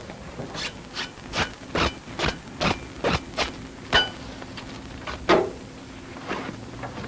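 A run of about a dozen sharp scraping knocks, two to three a second, as metal fittings at the sight mounting of a 40 mm L70 anti-aircraft gun are handled. One knock rings briefly, and the last, near the end, is the loudest.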